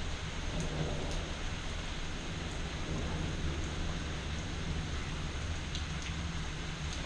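Steady rain falling, with a low rumble of thunder rolling through and a few sharp ticks of single drops.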